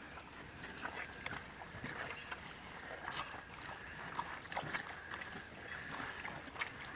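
Cattle-yard sounds: scattered light knocks and clicks over a faint steady high tone.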